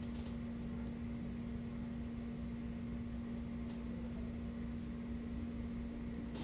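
Refrigerator running with a steady hum over a low rumble; the owner says the refrigerator is on its last leg.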